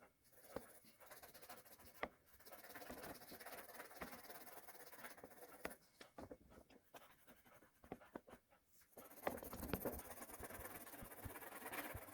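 Faint scratching of a coloured pencil shading on paper, in two stretches, with a few light taps between them.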